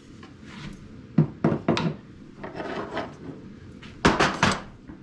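Wooden tool chest being handled: a few sharp wooden knocks and clatters, with some rubbing between them.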